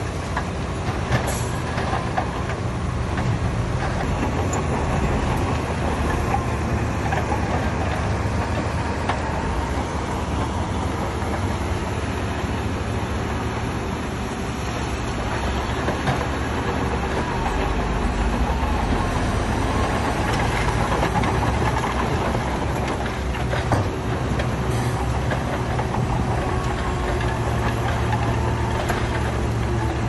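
Heavy diesel earthmoving machinery running steadily, with a few sharp metallic clanks.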